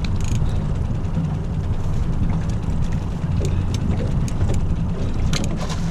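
Boat's outboard motor idling in neutral, a steady low rumble, with a few light clicks near the end.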